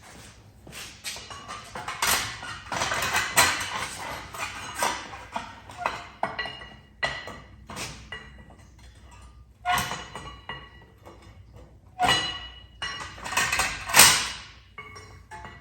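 Metal tools and axle parts clinking and clattering as they are handled, with irregular knocks and ringing metal clanks. A few louder clanks come near the end.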